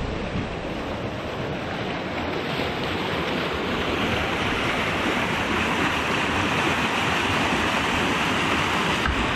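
Swollen snowmelt stream rushing fast under a bridge, with white water churning against the bank; the rushing grows louder and brighter about four seconds in.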